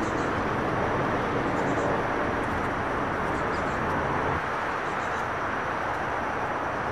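Steady outdoor background noise, an even rush with no distinct events, dropping a little about four seconds in.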